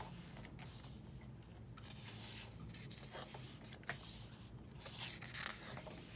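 Album photobook pages being turned by hand: a soft paper rustle and swish every second or so, with one light tap about four seconds in.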